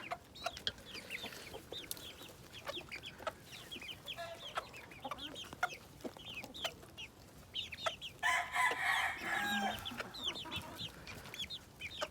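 Chickens clucking, with many short high calls throughout, and a rooster crowing once for about two seconds, starting about eight seconds in.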